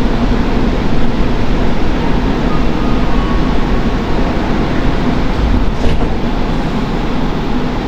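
Montreal metro train running on its rubber tyres, heard from inside the car: a loud, steady rumble.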